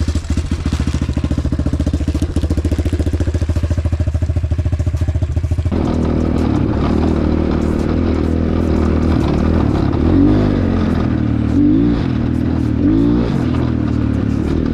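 Kews Chinese off-road motorcycle engine running cold, idling with an even pulsing beat. About six seconds in it picks up to a higher, steadier speed, and it is revved up and back down three times near the end.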